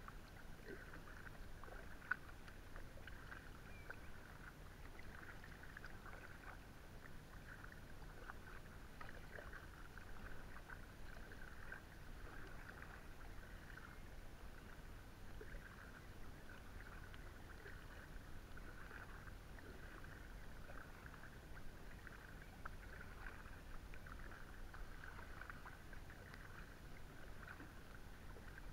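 Inflatable kayak being paddled: faint, continuous splashing and dripping from the paddle blades in the water, swelling and easing with the strokes, over a low, steady rumble.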